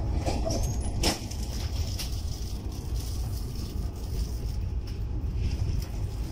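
Passenger train running steadily, heard from inside a coach: a continuous low rumble with a couple of sharp clicks about one and two seconds in.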